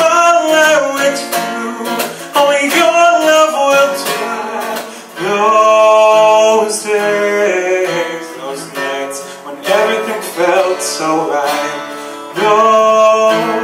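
A live vocalist singing over a strummed acoustic guitar, holding two long notes, one in the middle and one near the end.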